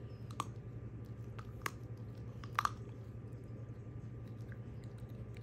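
Small dog chewing a frozen raw chicken foot: three sharp crunches of teeth on the frozen bone, the last one doubled, over a steady low hum.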